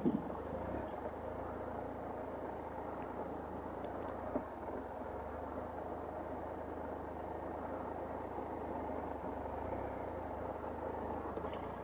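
A 2015 Triumph Explorer XC's three-cylinder engine running steadily at low revs, heard through the rider's helmet camera, with no revving. A single short knock sounds about four seconds in.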